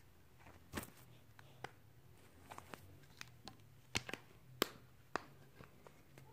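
Light, irregular clicks and knocks of plastic toy tools and parts being handled and fitted together, about a dozen separate taps with the sharpest a little past the middle.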